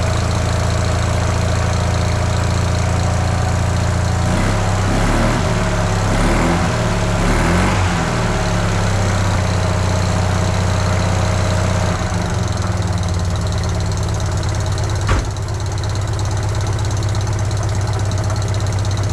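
Fiat 500's air-cooled two-cylinder engine idling steadily just after a new rear engine mount was fitted, running sounding pretty good. The revs rise and fall a few times from about 4 to 8 seconds in, and there is a single sharp knock about 15 seconds in.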